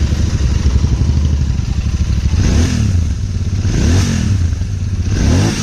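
Royal Enfield Interceptor 650's 650 cc parallel-twin engine running through its stock exhaust with a heavy note. The throttle is blipped three times, about two and a half, four and five seconds in, each rev rising and falling back to idle.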